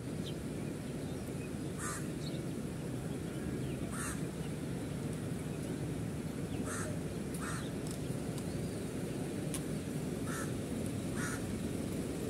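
Short animal calls, about six of them at irregular gaps of one to three seconds, over a steady low background rumble.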